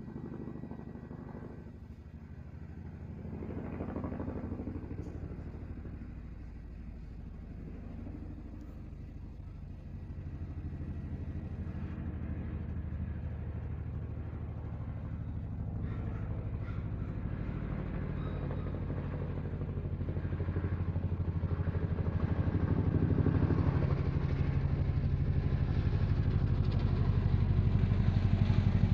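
An engine running steadily with a low, rapidly pulsing drone that grows louder through the second half.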